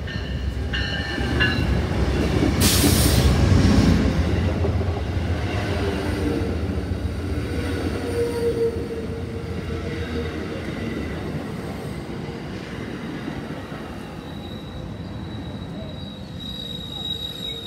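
Amtrak passenger train passing close at speed. The GE Genesis diesel locomotive goes by loudest a few seconds in, followed by a long string of stainless-steel cars rolling past with steady wheel-on-rail noise. Squealing wheel tones come in and out, the highest near the end.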